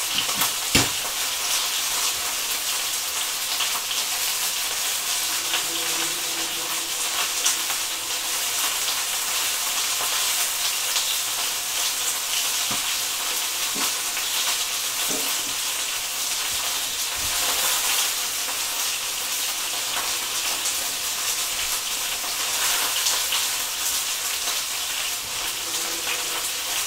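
Chicken thighs sizzling steadily as they fry in a pan.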